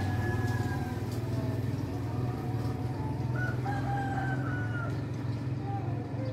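Roosters crowing, one long crow at the start and another about three and a half seconds in, over a steady low hum.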